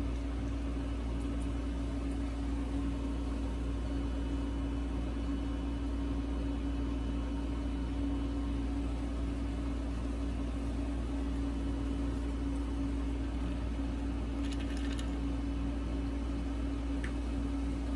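Steady machine hum with a constant low tone and a low rumble underneath, unchanging throughout, with a few faint clicks about fifteen seconds in.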